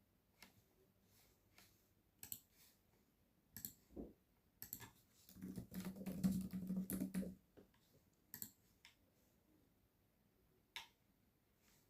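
Computer keyboard keys and a mouse clicking: scattered single clicks with pauses between, and a quick dense run of keystrokes in the middle.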